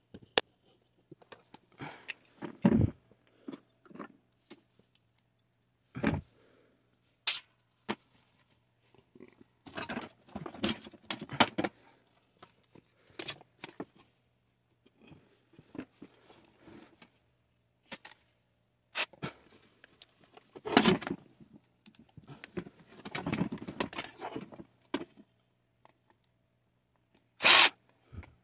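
Sheet-metal parts of a butane camp stove clinking, rattling and scraping on and off as they are handled and pulled apart. Near the end a cordless drill runs briefly, driving out a screw from the casing.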